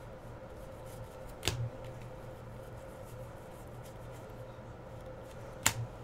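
Football trading cards being handled: two short sharp clicks, about a second and a half in and again near the end, over a steady low hum.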